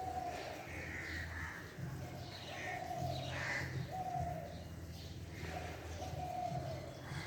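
Crows cawing repeatedly, with pigeons cooing low underneath.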